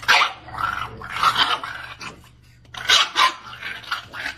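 A dog vocalising in several short, loud outbursts, with a quieter gap about two seconds in.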